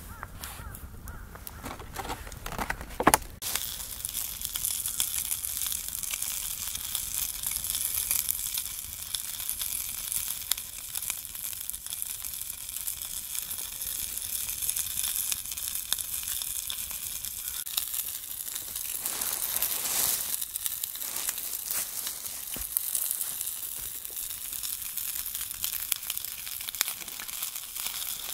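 Food sizzling over a small wood fire, with fine crackling throughout. A few handling knocks in the first three seconds, the loudest about three seconds in.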